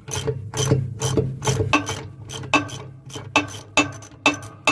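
Ratchet wrench clicking as it backs out a loosened 19 mm bolt on a truck air spring mount, about two clicks a second.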